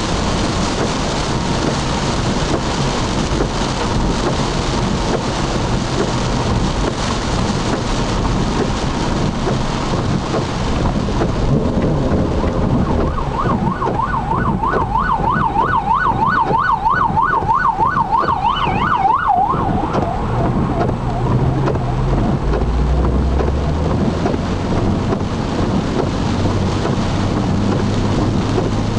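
Heavy rain on the car and tyres on the wet road, heard from inside the car cabin. About thirteen seconds in, an emergency vehicle's siren sounds in a fast rising-and-falling yelp, several cycles a second, for about six seconds and then stops.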